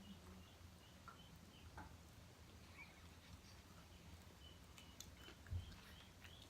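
Near silence: faint room hum with a faint, evenly repeated high chirp, about three a second, and a few soft clicks, with one soft thump about five and a half seconds in.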